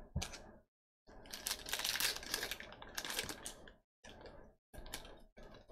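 Foil wrapper of a Topps Allen & Ginter baseball card pack crinkling and tearing as it is ripped open by hand, one long tear of about three seconds followed by three shorter crinkles.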